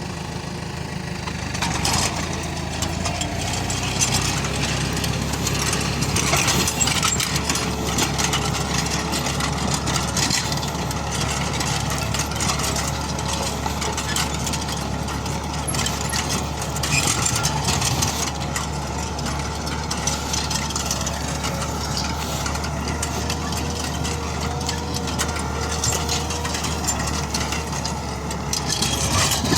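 New Holland TD4.100F tractor's diesel engine running steadily, with frequent rattling and knocking over it.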